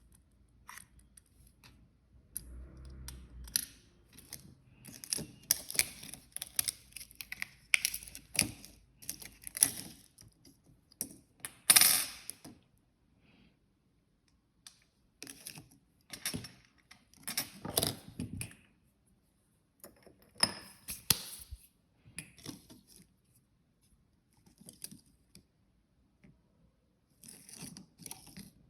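Close-up handling noise: irregular bursts of crackling, rustling and clicking separated by pauses, the loudest about twelve seconds in.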